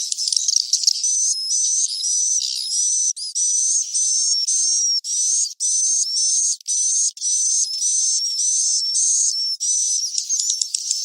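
Edited recording of edible-nest swiftlet twittering calls, the 'suara inap' roosting lure played in swiftlet houses: dense, repeated high chirps with short sweeps, everything below the high range cut away. A few brief gaps break it in the first half.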